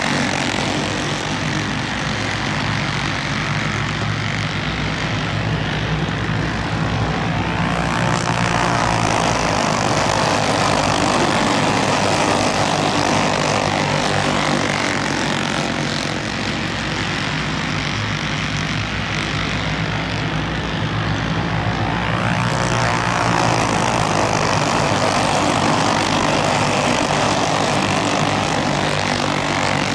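A pack of dirt-oval racing karts with single-cylinder Briggs & Stratton flathead engines running hard, a continuous buzzing drone. It swells and sweeps in pitch twice as the pack comes around past the fence.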